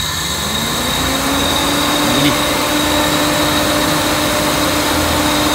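Peugeot 406's electric radiator cooling fan spinning up over about two seconds as its relay is pushed back into its socket, then running steadily. A small click comes about two seconds in.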